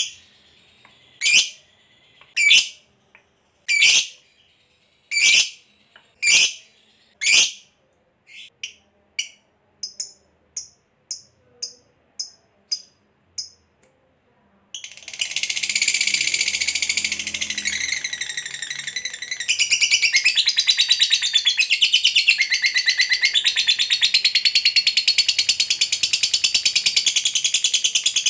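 Lovebird calling: seven loud, sharp single calls about a second apart, then softer, quicker chips. About halfway through it breaks into a long, unbroken rapid chatter, the 'ngekek' trill prized by lovebird keepers, which grows louder a few seconds in and keeps going.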